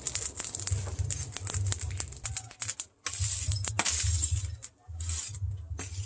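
Lumps of charcoal clinking and rattling as they are raked and heaped over an axe blank in a charcoal forge, with a few short bursts of hiss and a low rumble beneath.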